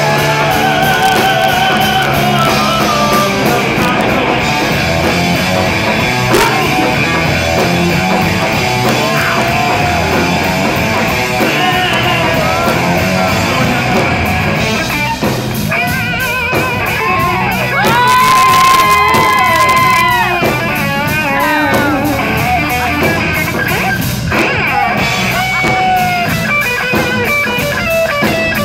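Live rock band playing: electric guitar, drum kit and vocals through the PA. One long held note a little past the middle is the loudest moment.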